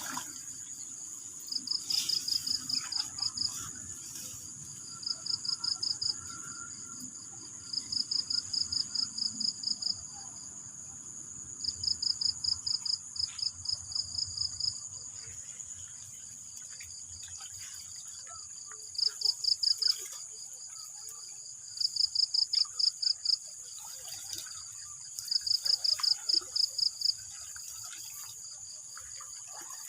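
Field crickets chirping in bursts of rapid high pulses every few seconds, over a steady high insect drone.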